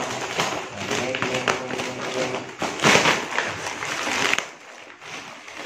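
Black plastic mailer bag crinkling and rustling as it is handled and cut open with scissors, with sharp snips and taps and a loud burst of crinkling about three seconds in.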